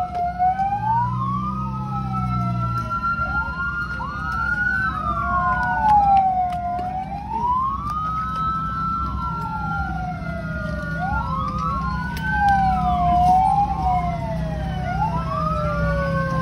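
Several fire-brigade vehicle sirens wailing at once, out of step, their rising and falling pitches crossing over one another. A steady low engine hum runs underneath.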